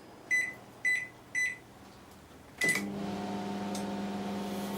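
LG IntelliWave microwave oven's keypad beeping three times, then a fourth beep as the oven starts and settles into a steady hum from its running transformer, magnetron and fan.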